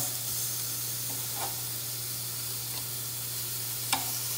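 Duck chops sizzling steadily on the hot grate of an electric indoor smokeless grill, with a short light click near the end as metal tongs turn the meat.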